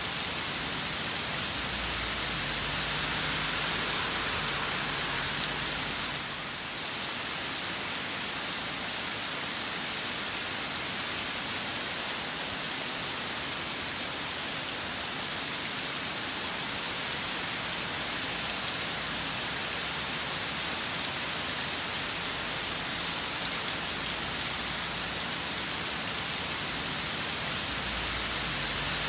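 Steady heavy rain falling in a storm, a dense, even hiss, easing slightly for a moment about six seconds in.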